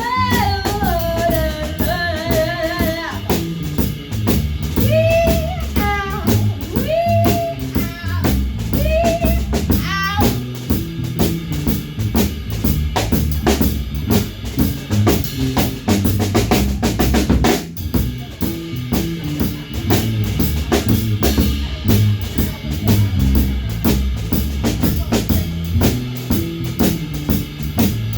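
Live band playing an instrumental passage: a drum kit with bass drum and snare keeps a steady beat under the bass, with a gliding lead melody over the first ten seconds or so. A quick drum fill comes about seventeen seconds in.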